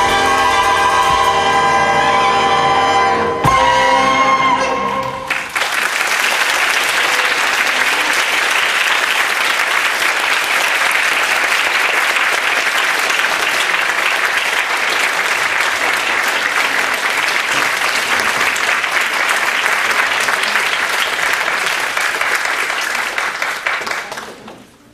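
A big jazz band of saxophones, trombones, trumpets, piano, upright bass and drums holds its final chord and ends with one last hit about three and a half seconds in. The audience then applauds steadily for most of the rest, and the applause fades out near the end.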